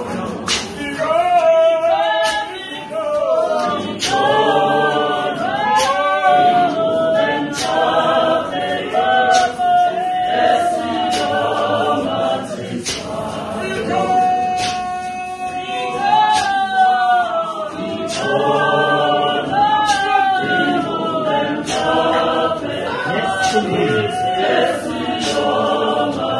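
Large church choir of many voices singing a cappella, with sharp beats recurring about every second and a half.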